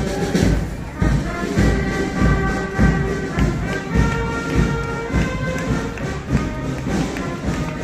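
Band music with sustained melody notes over repeated low drum thumps, typical of a marching band passing in a parade.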